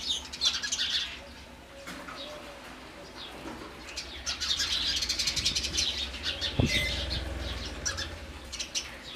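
House sparrows chirping in a busy group: a flurry of chirps in the first second, fewer for a few seconds, then dense chirping from about four to seven seconds in.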